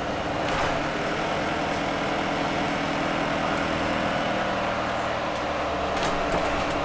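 Iveco Urbanway 12M city bus heard from inside the passenger cabin while driving: the engine runs steadily under a haze of tyre and road noise, with a few brief knocks about half a second in and near the end.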